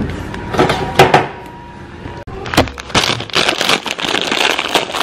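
Handling noise close to the microphone: a few sharp knocks in the first three seconds, then a dense crackling rustle near the end as a hand moves over the recording device.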